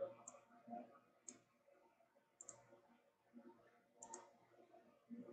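A few faint computer mouse clicks, some in quick pairs, over near-silent room tone.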